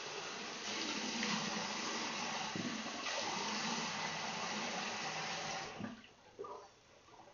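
Bathroom sink tap running with water splashing as a face is rinsed with cold water; the water stops suddenly about six seconds in, leaving a few faint short sounds.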